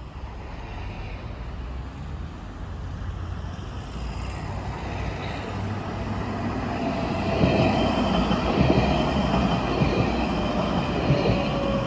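Alstom Citadis X05 tram running on the track, its rolling rumble growing louder about halfway through. Near the end a steady tone slides slowly lower in pitch.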